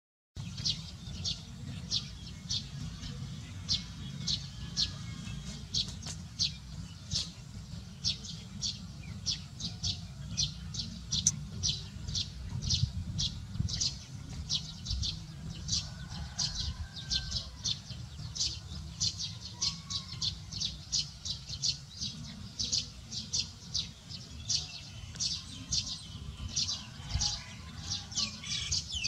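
A small bird chirping over and over, a few short, high chirps a second, over a steady low rumble.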